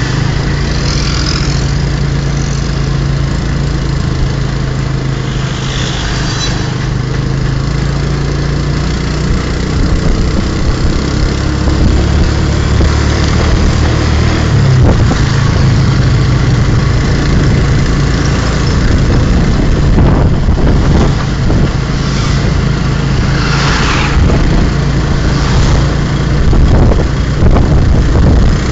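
Engine and road noise heard from a passenger seat in a moving vehicle: a steady low engine hum over constant road and wind rush, with the engine note shifting about halfway through.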